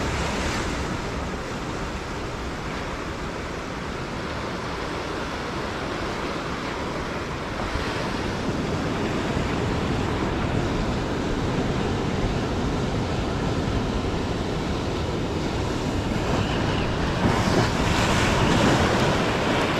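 Ocean surf breaking and washing over shoreline rocks, a steady rushing wash that swells louder for a couple of seconds near the end.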